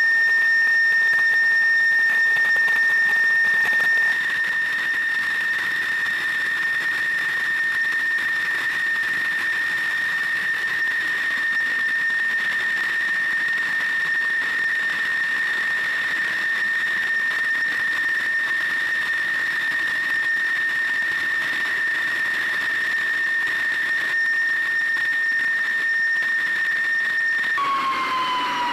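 Fighter jet engine whining steadily at a high pitch over a rushing hiss. Near the end the whine drops and starts to fall in pitch as the engine winds down.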